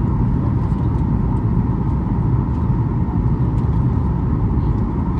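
Steady cabin noise inside a Boeing 737 MAX 8 in flight: a deep, even rumble of airflow and its CFM LEAP-1B engines, with a faint steady hum over it.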